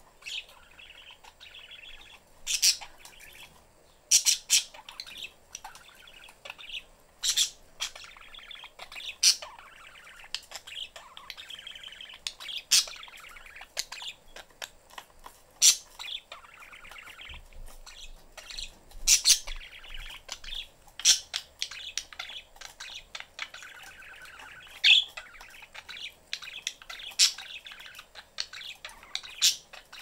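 Pet budgerigars chattering: a soft, continuous warble broken by frequent sharp, loud chirps at irregular intervals.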